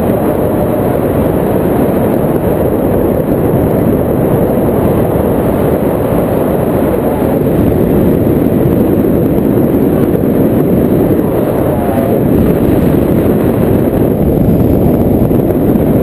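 Loud, steady wind rush buffeting the microphone in flight under a paraglider, a dense low rumble with no let-up.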